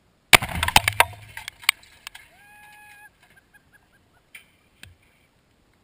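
Four pounds of Tannerite packed in a clothes dryer detonating: one sudden, very loud blast about a third of a second in. A second or so of sharp cracks and clatter from debris follows. Then come short high whooping cries and two small knocks of debris landing near the end.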